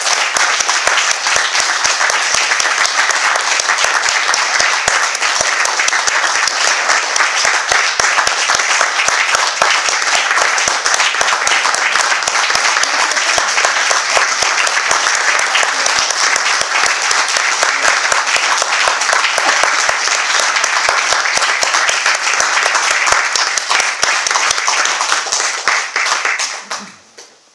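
Audience applauding, a steady, dense clatter of many hands clapping that dies away quickly near the end.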